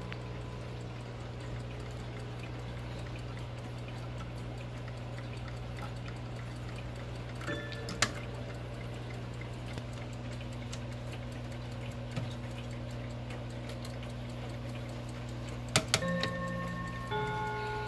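Mantel clocks ticking over a steady low hum, with sharp clicks about eight seconds in and again near the end as the clocks are handled. Right after the second clicks, bell-like chime tones from the tambour mantel clock start ringing.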